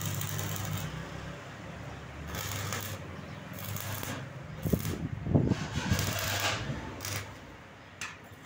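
Stick (arc) welder tacking a frame of steel strips: the arc crackles and hisses in short bursts of a second or less over a steady low hum. There are a few sharp metallic knocks about halfway through.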